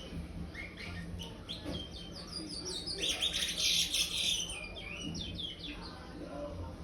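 Young chestnut-bellied seed finch (curió) in brown juvenile plumage singing its praia-type song: a run of quick, descending whistled notes, densest and loudest in the middle.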